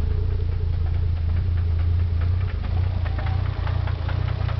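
Nissan 300ZX Twin Turbo's V6 engine idling with a knocking tick running through its steady drone. The owner says the knock could be a bearing.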